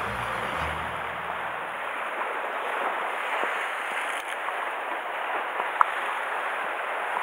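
Sea waves washing against the foot of a rocky shore ledge, a steady rushing wash with a few small clicks, one sharper click near the end.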